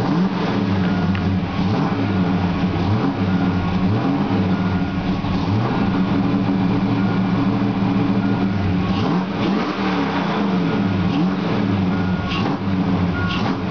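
A 1987 Ford Mustang's V8, freshly fitted with new heads, cam, intake and headers, idling on its first start after the build. Several brief rises and falls in revs break the steady idle. It is heard from inside the car.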